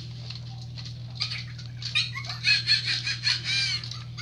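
Fingerlings baby monkey toy chattering in high-pitched electronic squeaks and babble, sparse at first and busier in the second half, over a steady low hum.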